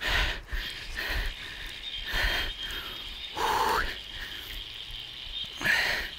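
A man's breaths and short groans, several in a row, while fighting a heavy fish; a faint steady high tone sounds underneath.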